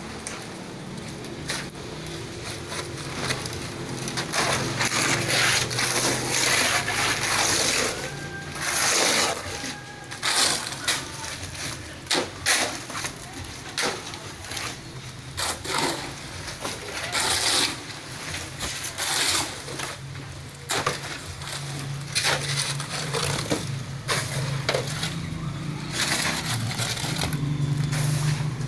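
Steel shovel scraping across a concrete slab and digging into wet gravel and concrete mix, in repeated irregular strokes, over a steady low hum.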